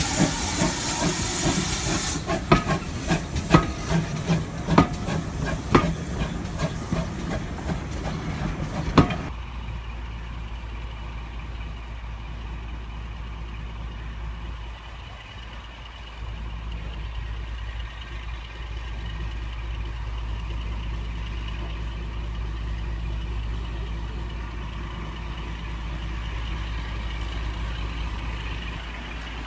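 Steam locomotive hissing loudly, then hissing with irregular sharp clanks and knocks. About nine seconds in it cuts off abruptly to a steady low rumble.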